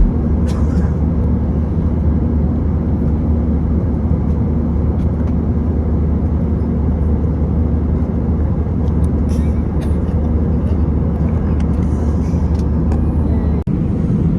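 Steady low rumble of a vehicle in motion, heard from inside, with a constant low hum and a brief break near the end.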